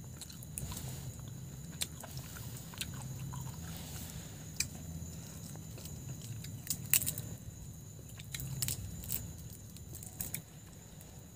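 Shells of grilled prawns crackling and snapping as they are peeled apart by hand, with chewing. Scattered sharp clicks, the loudest about seven seconds in.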